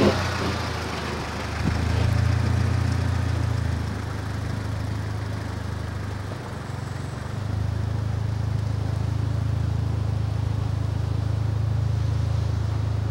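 Honda Civic sedan's 1.8-litre four-cylinder engine running at low revs as the car creeps out of a driveway at an angle, a low steady drone. It swells about two seconds in, dips briefly past the middle, then holds steady.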